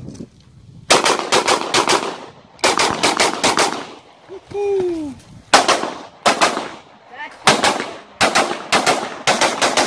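Rapid pistol fire from a 9mm major open-division race gun: quick strings of three to five shots come in bursts a second or two apart, and the last string near the end is the longest.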